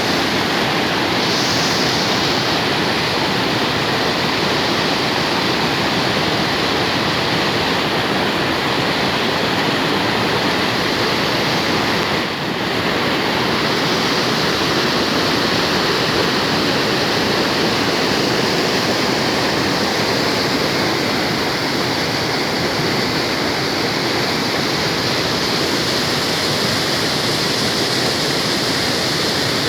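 Water from a natural mountain spring rushing and splashing steadily, with a brief dip about twelve seconds in.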